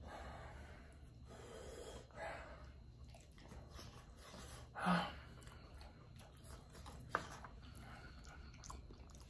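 A man breathing audibly through his mouth and chewing a spoonful of mac and cheese, his mouth still burning from extra-hot chicken. There is a louder breath about five seconds in and a short click about seven seconds in.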